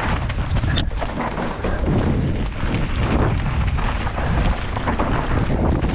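Wind rushing over the microphone of a camera riding a fast mountain-bike descent, with the tyres running on a dirt trail and frequent short knocks and rattles from the bike over rough ground, one sharper knock about a second in.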